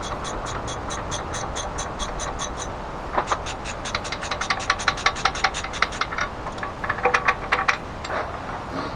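Ratchet wrench clicking in even strokes, about five clicks a second. From about three seconds in the clicking turns faster and louder, with a few duller knocks near the end.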